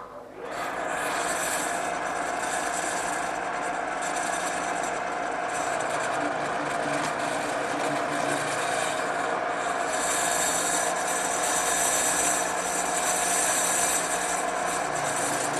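Drill press running steadily as a 1/4-inch brad point bit bores dowel holes through the corners of an oak door frame, a steady motor hum under the hiss of the bit cutting wood. The cutting hiss grows louder in the last few seconds.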